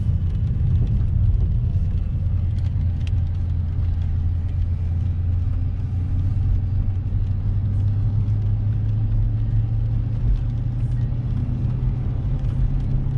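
Dodge Challenger's HEMI V8 giving a steady low drone while cruising, heard from inside the cabin along with road noise.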